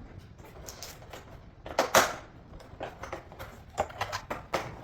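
Scattered clicks and knocks of hard objects being handled, loudest about two seconds in.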